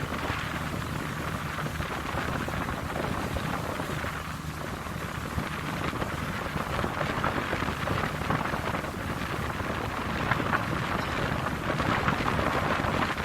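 Wind buffeting the microphone on the deck of a Seine river cruise boat, over the steady low hum of the boat's engine.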